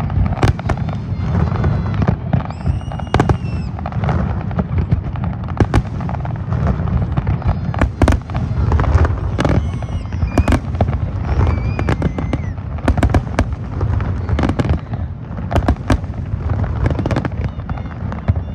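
Fireworks display: a fast, continuous string of bangs and crackles over a steady low rumble, with a few high whistles.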